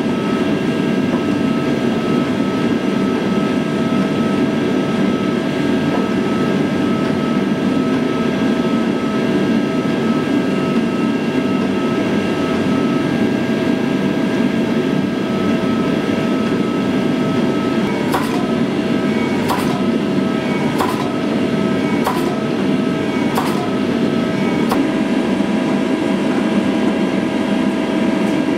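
Forging press running with a steady roar and a constant whine while red-hot steel is squeezed between its dies. About two-thirds of the way through come six sharp metal knocks, roughly one and a quarter seconds apart.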